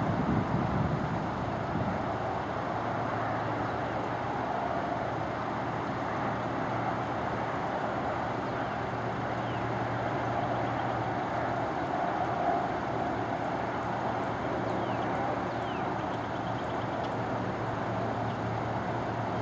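Steady outdoor background noise of distant road traffic, an even hum with no distinct events.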